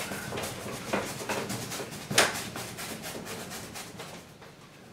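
A paintbrush scrubbing a wash of paint across a large stretched canvas in quick repeated rubbing strokes, the strongest about two seconds in, growing fainter toward the end.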